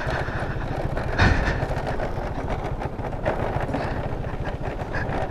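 Motor scooter riding along a rough, narrow paved path: a steady rumble of engine, tyres and wind, with a louder jolt about a second in.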